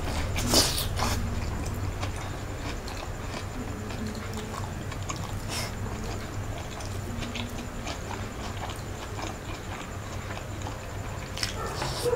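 Close-miked eating: a crisp bite into a fried spring roll (lumpia Shanghai) about half a second in, then chewing of it and of fried rice, with scattered small clicks and another bite near the end.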